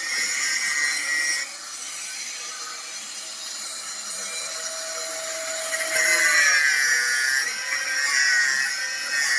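Electric grinder cutting through thick material, a high whine with a grinding rasp. It drops and quietens about a second and a half in, then comes back louder with a wavering pitch past the middle as the cut is bearing down.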